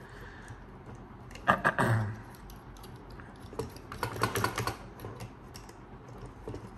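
Clicks and light rattles of small plastic and metal parts as a Boya BY-MM1 shotgun microphone in its red shock mount is handled and screwed onto a mount by its knurled wheel. The clicks come in groups, the loudest about a second and a half in, another round about four seconds in, and a few near the end.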